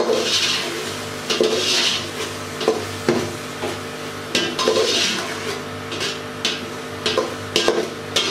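A slotted metal spatula stirring and scraping a sizzling onion, tomato and green-chilli masala around a metal cooking pot, with sharp clinks of the spatula against the pot. The masala is being fried down with a little water.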